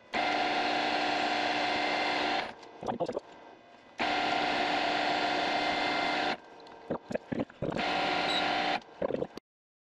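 Metal lathe running, turning down a replacement stepper-motor shaft: a steady machine whine with several held tones over a cutting hiss. It comes in three stretches that start and stop abruptly, with quieter gaps holding a few clicks.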